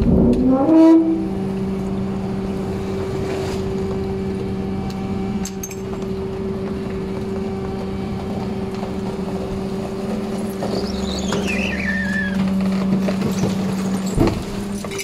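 Rear-loader garbage truck's hydraulic packer running a compaction cycle: a steady mechanical hum from the engine and pump under load, which rises in pitch as it revs up at the start. A short squeal falls in pitch about eleven seconds in, and there is a knock near the end.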